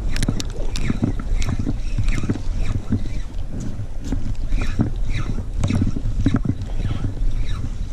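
Shimano Sedona C5000 spinning reel cranked and the rod jerked in a shore-jigging retrieve, with repeated clicks and short falling squeaks. A steady low wind rumble on the microphone runs underneath.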